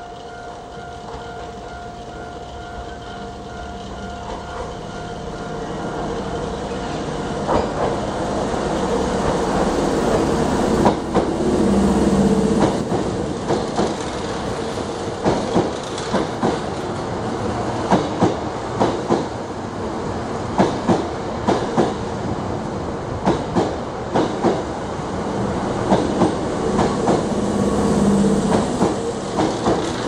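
Hankyu 6000 series eight-car electric train passing slowly through a curved station. Its approach builds over the first several seconds, then its wheels clack over the rail joints, mostly in quick pairs, as the cars go by.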